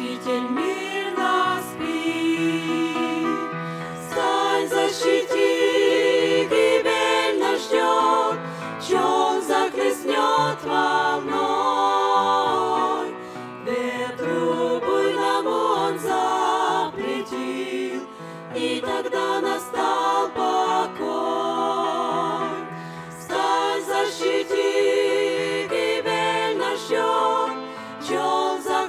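A women's vocal group singing a Russian-language hymn in harmony, several voices together with vibrato, in phrases separated by short breaths.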